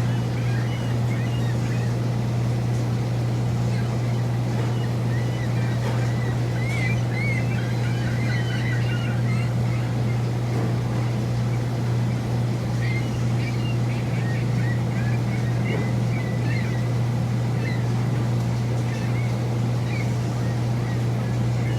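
A steady low mechanical hum, with high chirping calls scattered over it.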